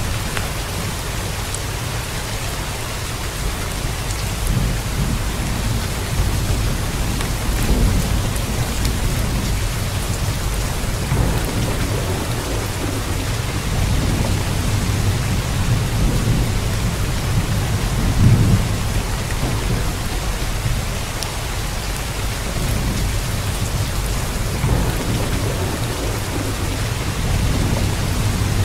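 Steady hiss of heavy rain, with low rolling rumbles of thunder that swell and fade several times, loudest about two-thirds of the way through.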